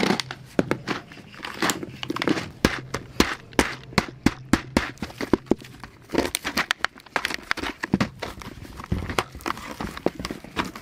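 Hardware screws being pressed and pried out of a plastic blister card. The blister plastic gives a rapid, irregular run of sharp clicks and cracks, with crinkling between them.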